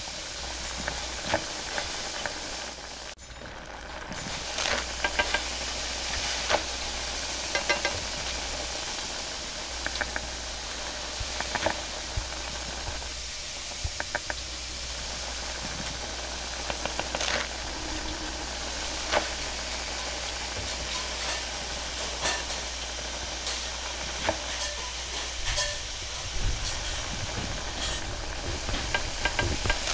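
Roti canai cooking on a flat steel griddle, giving a steady sizzling hiss, with scattered short clicks and knocks from kitchen work.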